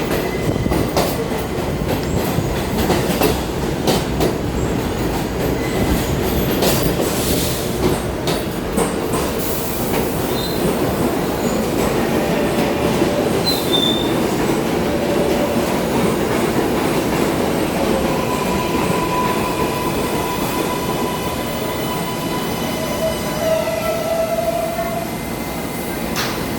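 New York City subway train running through the elevated station, a steady rumble with clicks over the rail joints and short wheel squeals in the second half.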